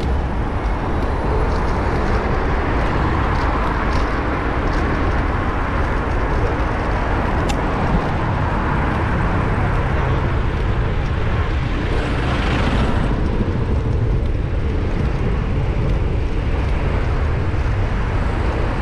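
Road traffic heard from a bicycle-mounted action camera while riding: a steady rush of passing vehicles with heavy wind rumble on the microphone. A louder rush swells and falls away about twelve seconds in.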